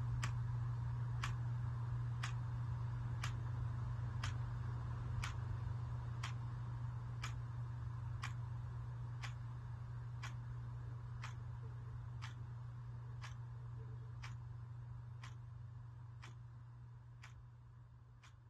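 Wall clock with only a second hand ticking once a second over a steady low hum, the whole sound fading out near the end.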